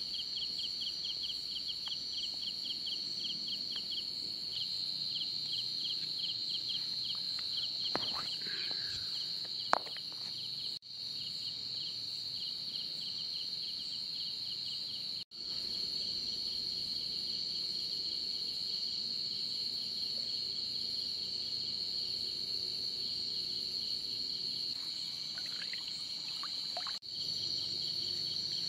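Night chorus of crickets: a steady high-pitched trill with a second insect pulsing several times a second just below it. A single sharp click about ten seconds in, and the chorus drops out briefly three times.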